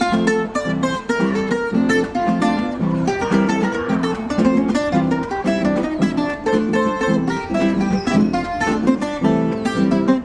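Cuban tres, its three doubled courses tuned to D, playing a rhythmic changüí pattern of quick plucked notes.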